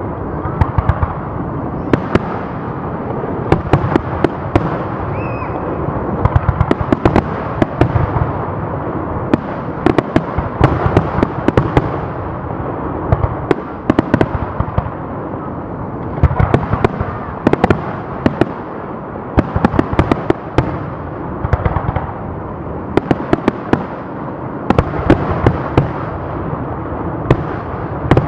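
Aerial fireworks display: a loud, continuous barrage of shells bursting, many sharp bangs a second over a constant rumbling din.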